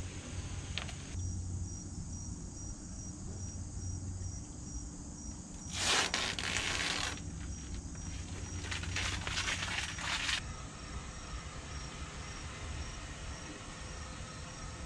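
Insects chirping in a steady, evenly pulsed high trill, over a low steady hum. Two short bursts of rustling noise come about six and nine seconds in.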